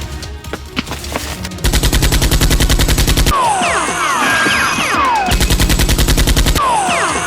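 Movie-style automatic gunfire sound effect in two rapid bursts about two seconds apart, each lasting a second or so, each followed by high falling whizzes and tinkles.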